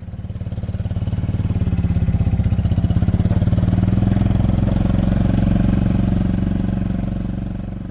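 An engine running steadily at an even speed, with a rapid, regular firing pulse. It swells up over the first second or so and eases off near the end.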